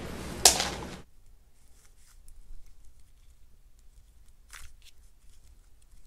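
Plastic 3x3 speed cube turned by hand: one sharp clack about half a second in, then faint clicks and rattles as the layers turn.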